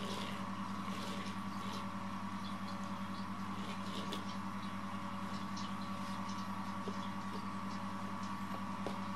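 A small motor running with a steady hum and a slight regular pulse, with faint light ticks over it.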